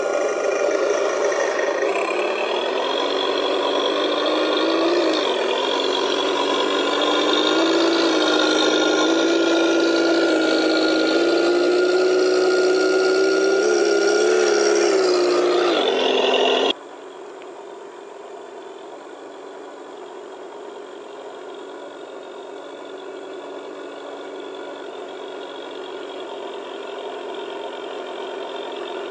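Simulated engine sound from the onboard sound unit of a 1:10 Tamiya Unimog 425 RC truck, rising and falling in pitch as the throttle changes. About two-thirds of the way through it cuts off suddenly, giving way to a quieter, steady engine sound that grows slowly louder.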